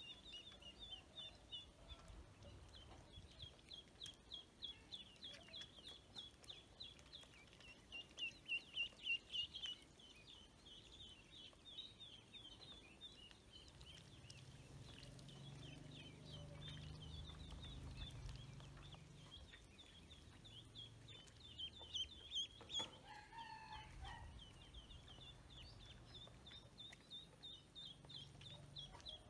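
Ducklings and a chick peeping: a steady run of short, high peeps, several a second, loudest about eight seconds in. A single lower call breaks in about twenty-two seconds in.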